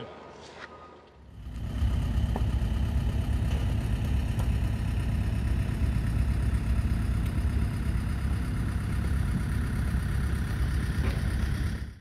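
An engine running steadily with a low rumble, starting about a second in and cutting off just before the end.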